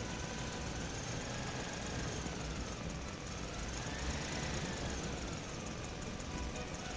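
Electric motor and gearbox whine of a WPL B24 radio-controlled truck driving, the pitch rising and falling with the throttle and highest about four seconds in, over a steady noisy rumble.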